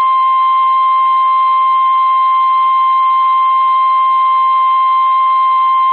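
Emergency alert tone of a weather-radio broadcast: one loud, steady, unwavering tone near 1 kHz with a buzzy edge, the NOAA Weather Radio 1050 Hz warning alarm tone. It signals that a warning is about to be read.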